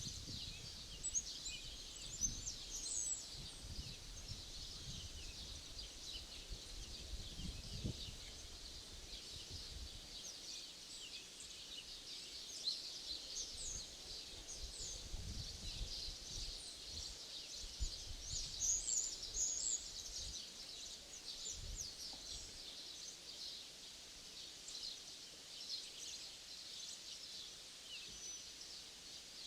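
Small birds chirping and singing continuously in many short, quick calls, with low gusts of wind on the microphone, strongest in the first third and again about halfway through.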